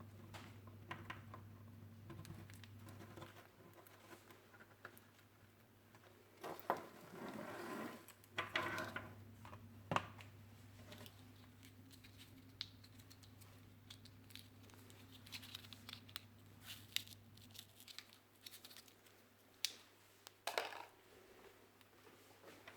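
Packaging being handled during an unboxing: crinkling and tearing rustles with scattered clicks and taps, the busiest stretch in the first half, over a steady low hum.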